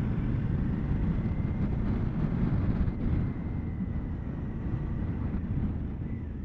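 Suzuki V-Strom 650's V-twin engine running under way on the road, with wind noise over the microphone. The engine note eases down a little about three seconds in.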